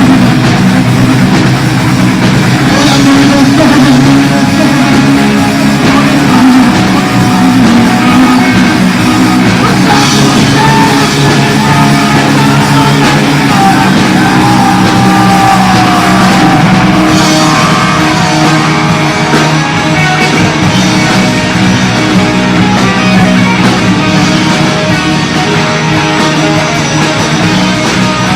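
Punk rock band demo recording: distorted electric guitars and a drum kit playing a song, loud and steady throughout.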